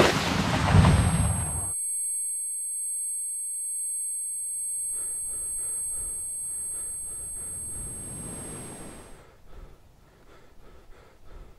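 The tail of a loud explosion cuts off suddenly about two seconds in, leaving a steady, high-pitched ringing made of several pure tones: the ear-ringing effect of a blast. Muffled sounds creep back in under the ringing about halfway through. The ringing stops about nine seconds in, leaving faint scattered noises.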